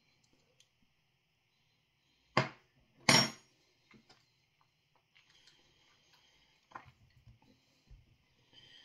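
Two sharp clinks about 0.7 s apart as a metal spoon is put down against a hard surface, the second ringing brightly, followed by a few faint small knocks.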